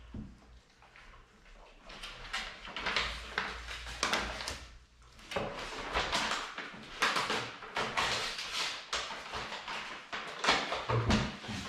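Close-up sniffing and paper rustling as a golden retriever noses at a magazine held in a person's hands, heard as irregular bursts of noise.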